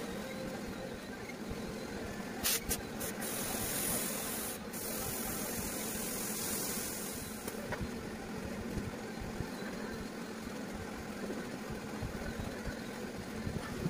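Compressed-air spray gun hissing: a few short bursts about two and a half seconds in, then a spray of about four seconds, applying adhesive for the sofa foam. A steady low machine hum runs underneath.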